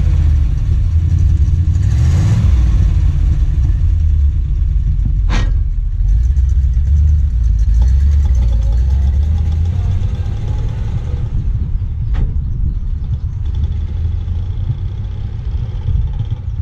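1934 Ford's 221 cubic inch flathead V8 running with a low, steady exhaust rumble as the car pulls away, getting a little quieter over the last few seconds. Two sharp clicks, about five and twelve seconds in.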